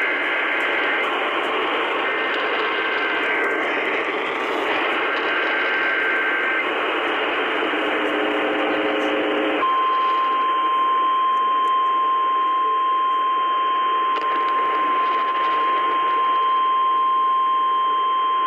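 Weather radio receiver hissing with static as a new Emergency Alert System message begins. In the first six seconds or so come three short bursts of the warbling SAME header data tones. From about ten seconds in, the steady single-note 1050 Hz weather radio warning alarm tone sounds for about nine seconds.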